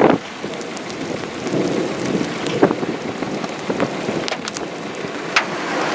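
Steady rain falling, with scattered drops ticking on a nearby surface and one sharper tick about five seconds in.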